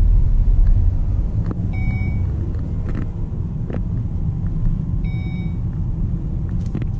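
Volvo V60 T6's 2.0-litre supercharged and turbocharged four-cylinder and the road, heard from inside the cabin as the car pulls away and rolls slowly: a steady low rumble. Two short electronic chimes sound, about 2 and 5 seconds in.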